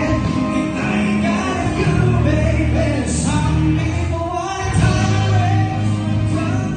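A man singing a song into a handheld microphone over instrumental accompaniment, amplified through the room's sound system.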